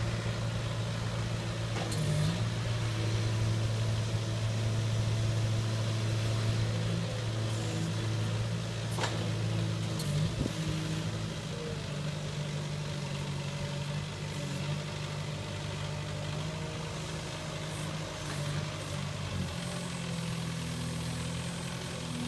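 PiggyBack truck-mounted forklift's engine running steadily as it is driven, its note shifting a few times with the throttle, with a few sharp clicks along the way.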